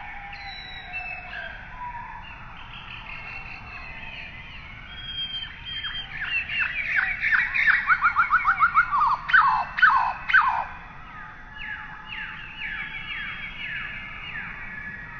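Birds calling: many short chirps that fall in pitch, with a loud, rapid run of them in the middle.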